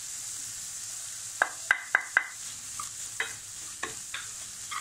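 Onions and green chillies sizzling in butter in a metal kadai while a wooden spatula stirs in red chilli powder. The spatula knocks against the pan with short ringing taps, four in quick succession a little over a second in, then a few more.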